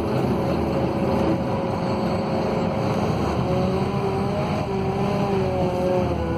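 Scania DC09 five-cylinder diesel engine of a Scania K280UB city bus running steadily while the bus drives. It is heard from inside the passenger cabin, with road rumble and a steady whine.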